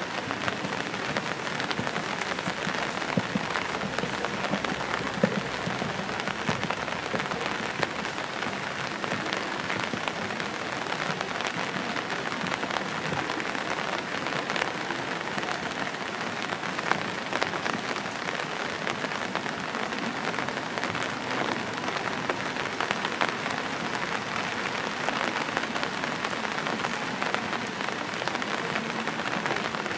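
Steady rain: a dense, even patter of drops with many scattered sharper ticks.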